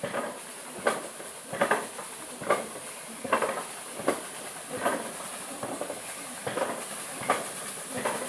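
Hatchet chopping wood on a stump chopping block, one sharp chop about every 0.8 seconds, about ten in all, over a steady high hiss.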